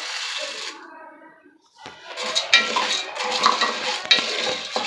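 Popcorn kernels pouring into melted butter in a pressure cooker pot, then, from about two seconds in, the kernels being stirred around the pot with rapid metallic clinks and scraping rattles.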